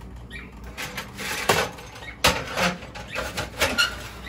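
Aluminium ice tray being taken out of an old Chevrolet refrigerator's freezer compartment: a series of clicks, scrapes and knocks, the sharpest knock about two seconds in.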